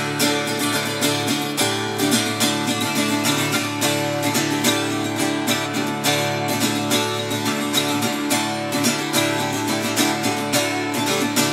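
Acoustic guitar strummed in a steady rhythm, chords ringing, with no singing.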